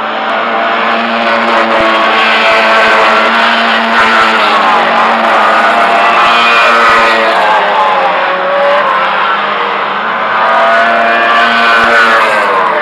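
Tuned race cars' engines revving hard, loud, their pitch climbing and dropping several times as they accelerate and brake through the circuit.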